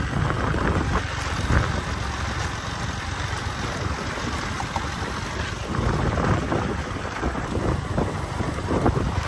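Wind buffeting the microphone over the rumble of a moving vehicle on a rough dirt road.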